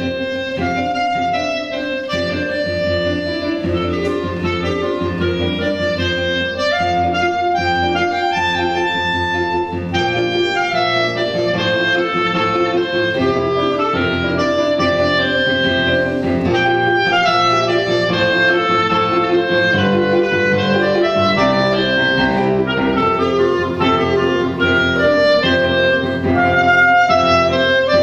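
Clarinet and piano playing together: the clarinet carries a quick, moving melody over chordal piano accompaniment, the music getting a little louder in the second half.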